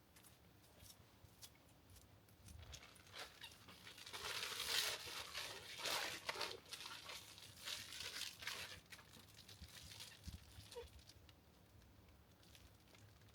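Plastic shrink bags crinkling and rustling as whole chickens in them are handled, in a run of crackly bursts loudest in the middle.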